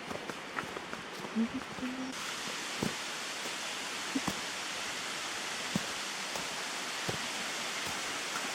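Steady rushing of a waterfall, which gets suddenly louder and brighter about two seconds in, with a few scattered light clicks.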